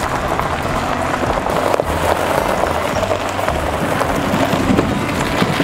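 Pickup truck and the wheeled chicken coop it tows rolling over a gravel lane: tyres crunching on the gravel, with a low engine rumble beneath.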